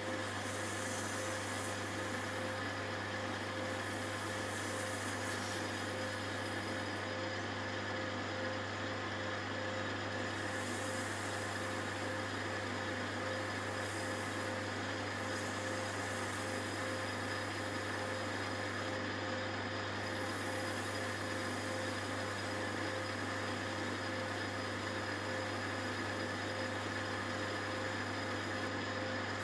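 Metalworking lathe running steadily, a constant motor and drive hum with a few faint fluctuations in the higher hiss.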